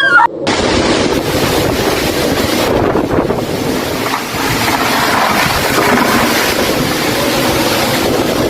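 Storm wind blowing hard, buffeting the microphone in a steady, dense rushing noise. A short voice cry sounds right at the start.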